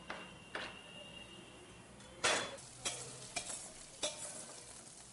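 Kitchen cooking sounds: two knife taps on a cutting board near the start, then a louder hissing burst a little over two seconds in and a few sharp clinks of a utensil against small steel pots, with food sizzling in the pan.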